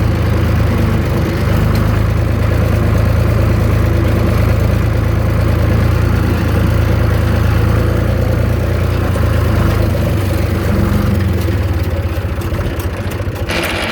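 Zetor 3320 tractor's three-cylinder diesel engine running steadily while driving in third gear, easing off slightly near the end.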